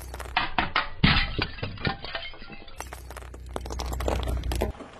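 A car tyre crushing brittle objects on asphalt: a quick run of sharp cracks and snaps, the loudest about a second in. A low steady rumble sits under the later part.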